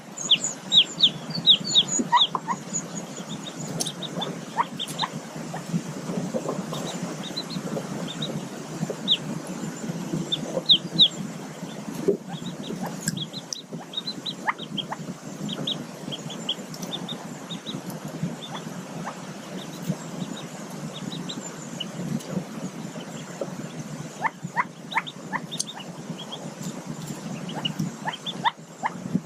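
Mallard ducklings peeping: clusters of short, high, thin peeps, busiest in the first few seconds and again around ten seconds in, then more scattered. A steady low background hiss runs underneath.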